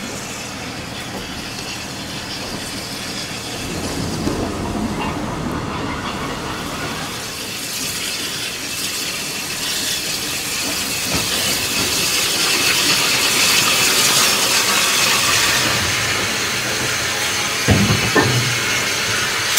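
Small Orenstein & Koppel 0-4-0 steam locomotive running slowly in, with a steady steam hiss and wheel noise that grow louder as it nears. There are a couple of short knocks near the end.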